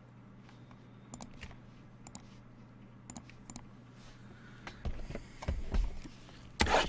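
Light scattered clicks and taps, then louder rustling and knocks from about two-thirds of the way in: trading card boxes and pack wrappers being handled and opened.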